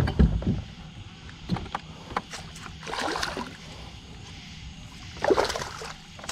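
A hooked walleye being netted into a boat: water splashing and knocks against the boat come in a few separate sudden bursts, the loudest at the start.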